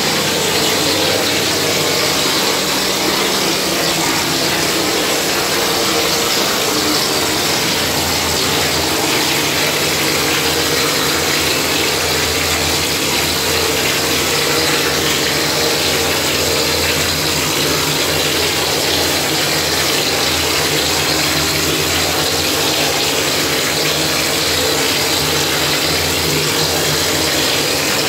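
Plaster spraying machine running steadily as gypsum plaster is sprayed onto a wall: a continuous hiss from the spray lance over the steady hum of the machine's pump and motor.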